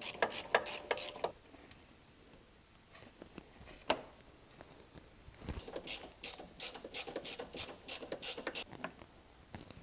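Hand ratchet with an extension and socket clicking as it loosens T30 Torx mounting screws. A short run of clicks at the start, a lone click about four seconds in, then a steady run of about four clicks a second that stops near the end.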